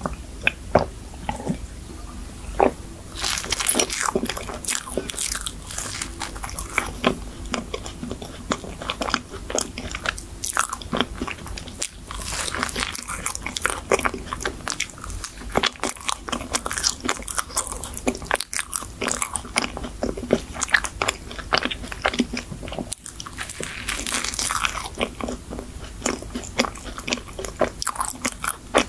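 Close-up chewing and crunching of a chocolate cream-filled choux pastry with a crumbly topping: dense crackly bites and chews that pick up about three seconds in and carry on steadily.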